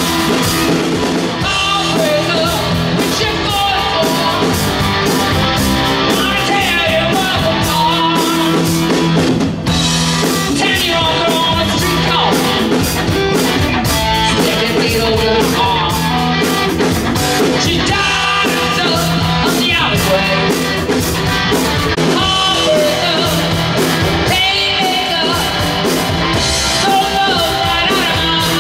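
Live rock band playing loudly: a woman singing lead over electric guitar, electric bass and a drum kit.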